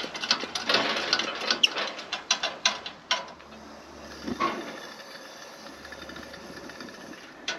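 Coleman liquid-fuel camp stove being pressurised: the plunger on its red fuel tank is pumped with quick clicking strokes for about three seconds. Then the valve is opened and the burner is lit with a short snap, and it hisses steadily while it burns cold, its generator tube still heating up.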